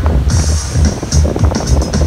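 Background music with a steady beat and a deep bass line.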